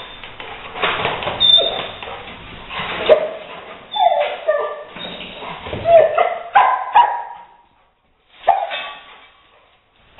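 Rottweiler barking and whining in a string of short calls that bend in pitch, falling silent for a moment about eight seconds in.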